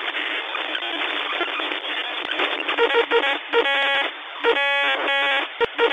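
Shortwave-style radio receiver hissing with static. From about halfway, harsh buzzing tones break through several times, each lasting up to about a second: signals caught while tuning across the frequencies.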